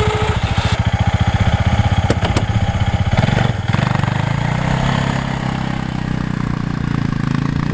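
Arctic Cat ATV engine running as it pushes a snow plow, its low pulsing note picking up and smoothing out about halfway through as the engine speeds up. A couple of short knocks about two seconds in.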